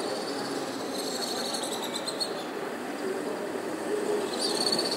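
Steady hum of city traffic from the streets below. Over it come high, buzzy trilling calls of birds, once about a second in and again near the end.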